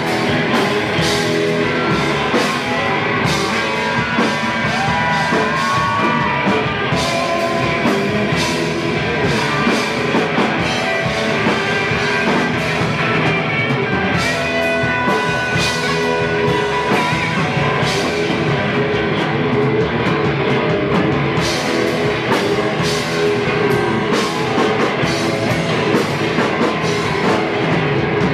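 Live rock band playing at full tilt: electric guitars over a drum kit with steady cymbal crashes, without a break.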